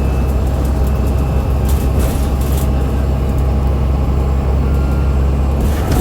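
ADL Enviro500 MMC double-decker bus heard on board under way, its Cummins ISL8.9 diesel and drivetrain making a loud, steady low drone. Two brief hisses cut in, about two seconds in and near the end.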